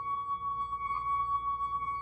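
A glass singing as its rim is rubbed: one steady, clear high tone, held with a slight wavering in loudness.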